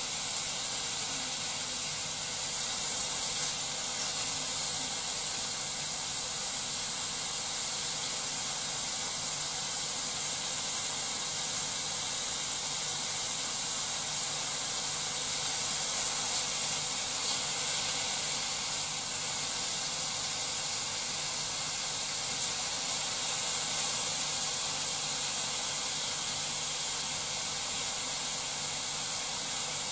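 Thin slices of meat sizzling steadily in a frying pan of sauce, stirred with chopsticks: a constant high hiss.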